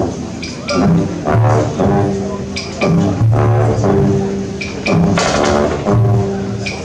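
A drum corps playing live: brass horns sounding held chords in short repeated phrases, with drum hits accenting where the phrases begin.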